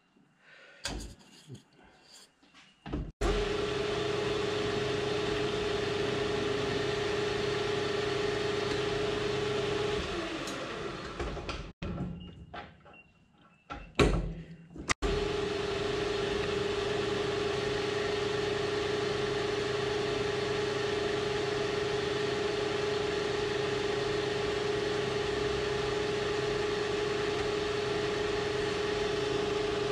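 Metal lathe starting up about three seconds in and running with a steady whine, spinning down around ten seconds in, then started again about fifteen seconds in and running steadily on. A few clicks and knocks are heard while it is stopped.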